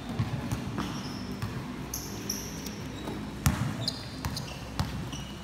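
Basketball game on a court: the ball bouncing and sneakers giving short high squeaks, with the loudest thud about three and a half seconds in.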